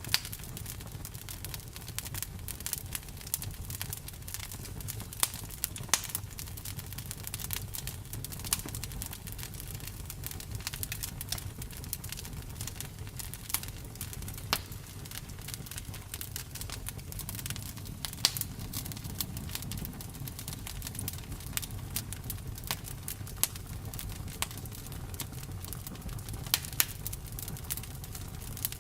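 Campfire crackling: irregular sharp pops and snaps of burning wood over a steady low rumble, with a few louder pops scattered through.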